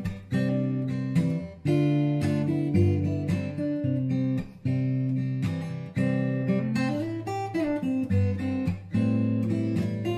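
Background music: guitar playing chords, each struck afresh every half second to a second.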